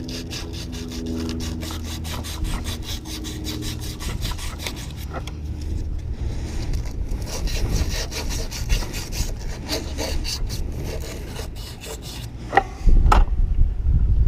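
Ratchet wrench cranked rapidly on a bolt, a fast run of rasping clicks, ending with a few sharp knocks and a louder low rumble near the end.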